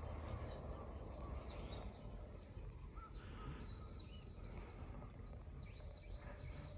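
Faint small-bird calls: short, arching chirps repeated at irregular intervals, over a low steady background rumble.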